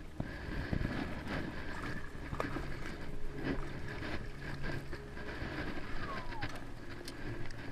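Scattered knocks, clicks and rattles of gear and a landing net against a plastic sit-on-top kayak as a peacock bass is netted and lifted aboard, over a steady low rumble.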